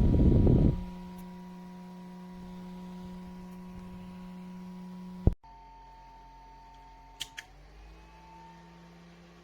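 Small USB desk fan's motor humming steadily after a short rush of noise. About five seconds in, a sharp click cuts the hum down to a quieter level. A few small clicks follow near seven seconds, and the pitch settles slightly lower, as when the fan is switched between speeds.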